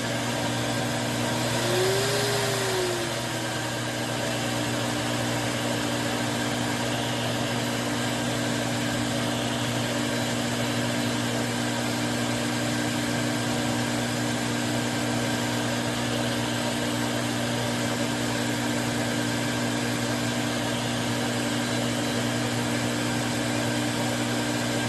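Pet hair dryer's blower running steadily: an even rush of air over a constant motor hum. About two seconds in, the pitch briefly rises and falls.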